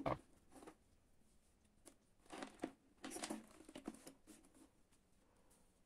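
Faint handling noise: a light click at the start, then scattered soft rustles and small taps of a hand moving over a laptop and its charging cable.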